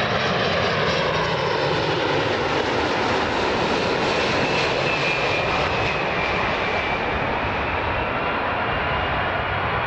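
A Boeing 747-400's four turbofan engines, a steady jet noise with a faint high whine that slides slightly lower, as the airliner passes close on final approach and comes in to land.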